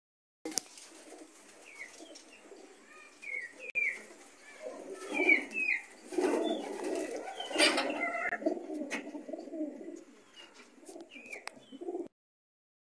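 Domestic pigeons cooing, busiest in the middle, with short high chirps of small birds over them. The sound cuts off suddenly near the end.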